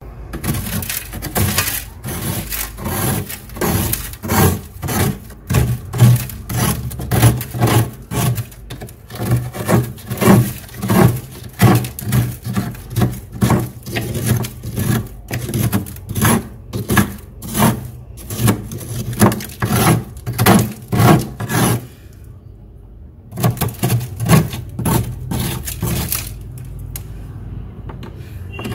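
Metal spoon scraping and gouging thick, packed frost off a freezer wall in repeated, uneven strokes, with a short pause a little over twenty seconds in.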